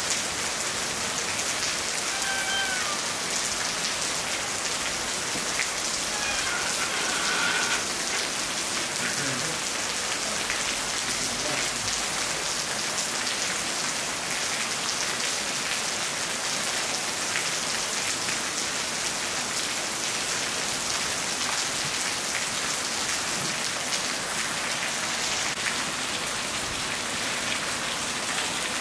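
Steady rain falling on the street and rooftops, a dense, even hiss of drops that holds at one level throughout.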